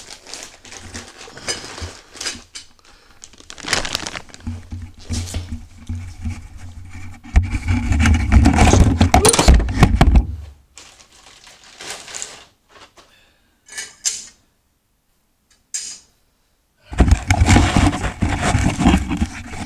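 Plastic packaging crinkling and rustling as a new stainless flex-pipe exhaust up-pipe is unwrapped by hand, with scattered clicks and knocks. A loud rubbing rumble comes about halfway through as a hand brushes the microphone, and it goes nearly quiet for a moment before the handling noise returns near the end.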